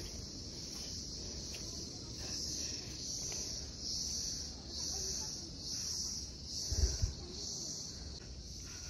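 Insects chirring in a steady high band that swells in regular pulses a little more than once a second. Two brief low thumps come about seven seconds in.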